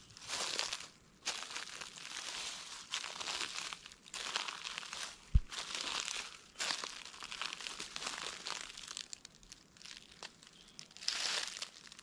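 Footsteps crunching through dry oak leaf litter, about one step a second. One dull low thump comes about five seconds in.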